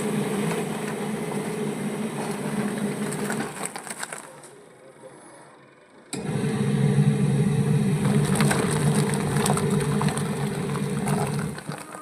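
Electric motor of a semi-automatic washing machine running with a steady hum. It winds down about four seconds in, starts again abruptly about six seconds in, and stops just before the end.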